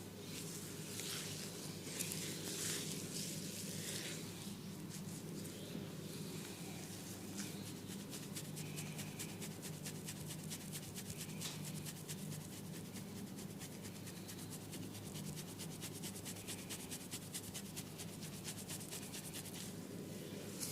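Hands rubbing and working an oiled scalp and hair, a wet rustling friction sound. From about seven seconds in it turns into a quick, regular run of short strokes.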